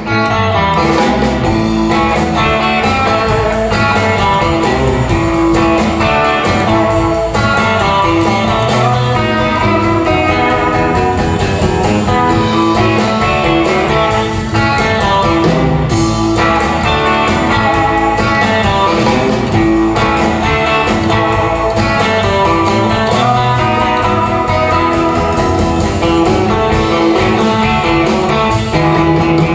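Live instrumental guitar-band music: electric guitars playing a melody over a driving beat from a drum kit, with a steady fast tick of cymbals, continuing without a break.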